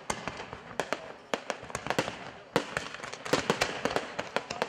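Fireworks display: aerial shells bursting in a fast, irregular run of sharp bangs with crackling in between, the loudest cluster of bangs coming a little past halfway through.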